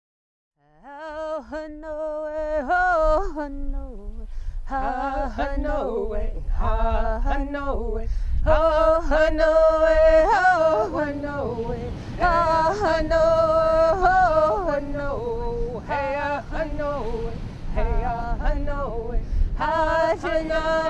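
A traditional Tolowa song sung unaccompanied, in long phrases of held notes that waver and slide in pitch, starting about a second in.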